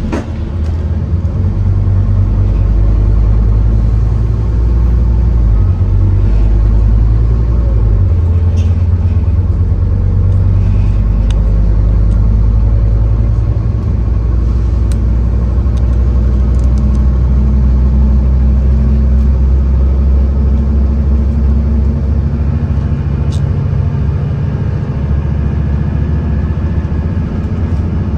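Scania N230UD OmniCity double-decker bus's diesel engine running hard under load, heard from on board, its note changing several times in the first half with gear changes. Light clicks and rattles now and then.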